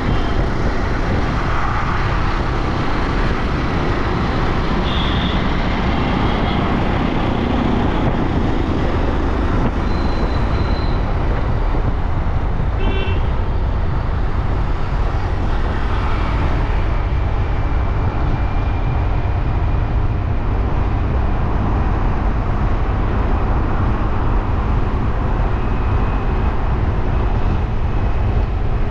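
Steady rush of wind and road noise heard from a moving motor scooter in city traffic, with short vehicle horn toots several times in the first half.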